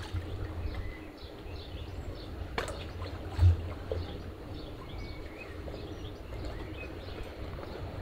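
Outdoor lakeside ambience: a steady low wind rumble on the microphone with small birds chirping, and one dull thump about three and a half seconds in.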